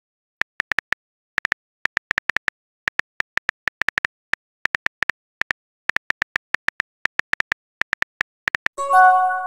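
Simulated phone-keyboard typing clicks, short sharp taps at an uneven three or four a second as a text message is typed. About nine seconds in, a brief chime of several steady tones sounds as the message is sent.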